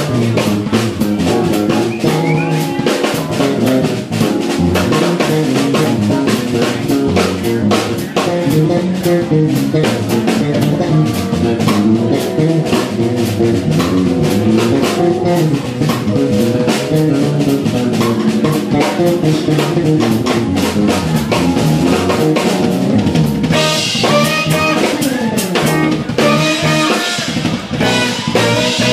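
Live jazz-fusion band playing: drum kit, electric bass, electric guitar and keyboard, with a saxophone joining about 24 seconds in.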